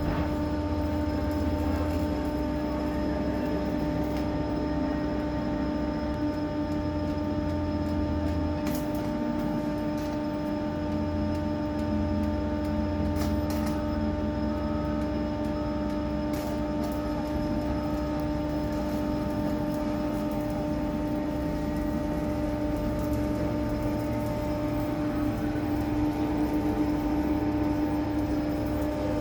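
Steady machine hum, one even pitch with overtones over a low rumble, with a few sharp clicks.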